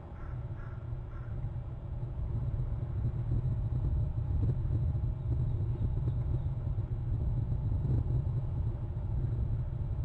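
Low rumble of wind on an outdoor camera microphone, growing louder about two seconds in, with a few faint short bird calls in the first second.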